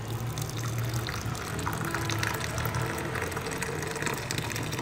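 Kashmiri pink tea poured in a thin stream into a mug, splashing and frothing as it fills, over background music.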